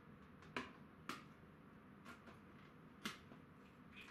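Near silence broken by four short, sharp clicks spaced unevenly over a faint steady background.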